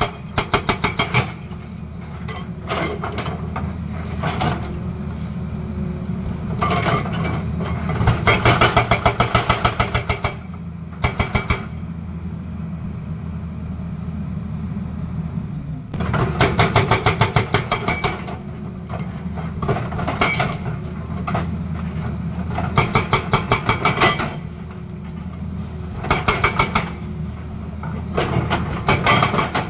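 Tata Hitachi excavator's hydraulic rock breaker hammering rock in repeated bursts of rapid blows, each lasting up to about two seconds. The diesel engine runs steadily between bursts.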